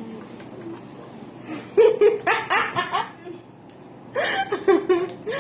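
Laughter in two bouts of short, quick bursts: one just under two seconds in, the second near the end.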